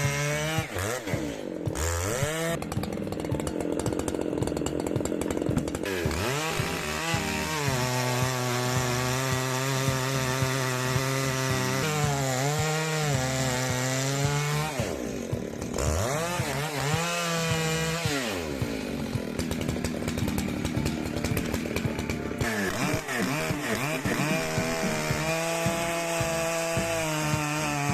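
Large two-stroke chainsaw running at high revs while cutting wood. Its engine pitch dips and climbs back up several times.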